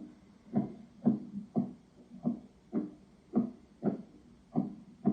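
Dull banging or tapping inside a house, a steady run of thuds about two a second, with no known cause.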